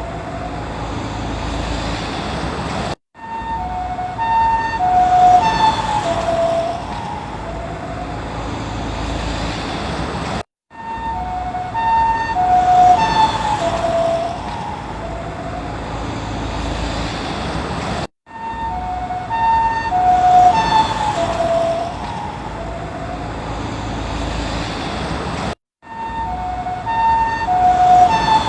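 Ambulance two-tone hi-lo siren going past with road noise. The siren grows louder and then drops in pitch as it passes, showing the Doppler effect. The same pass repeats about four times, with a short break of silence between repeats.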